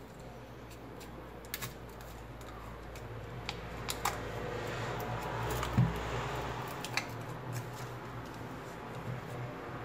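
Scattered small clicks and taps of hand tools working on a smartphone's back cover, the loudest a knock about six seconds in, over a steady low hum that stops about a second later.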